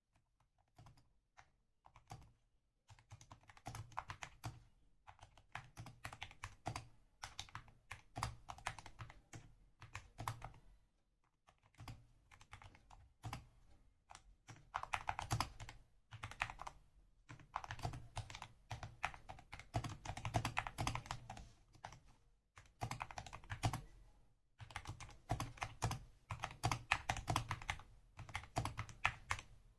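Typing on a Skyloong SK64S 60% keyboard with lubed Gateron optical red linear switches and foam and tape mods: a fast, steady stream of key presses, starting with a few scattered keystrokes and pausing briefly a few times.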